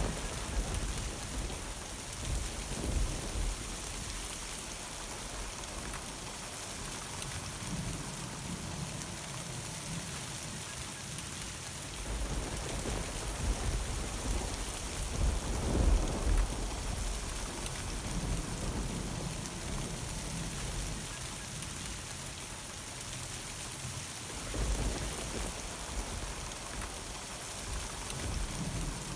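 Steady rain falling in a thunderstorm, with rolling thunder rumbling three times: at the start, loudest about halfway through, and again near the end.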